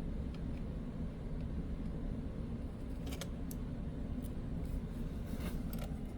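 A few faint, scattered clicks and taps of parts of the computer being handled during disassembly, over a steady low hum.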